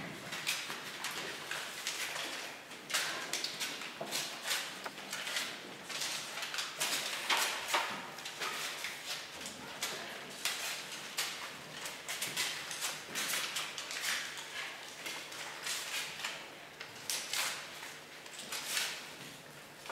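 Irregular scuffs, slaps and shuffles from several barefoot performers moving about on a hard floor, short sharp noises coming unevenly and overlapping.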